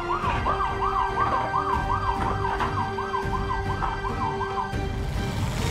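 Cartoon ambulance siren wailing in fast repeated rises and falls, about three a second, over a low steady rumble; it cuts off about five seconds in, and a short burst of noise follows at the end.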